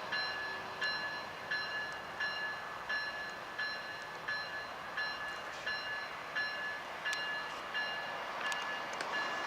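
Locomotive bell on a rail-grinding switch grinder train ringing steadily at about two strikes a second, over the rolling noise of the passing train.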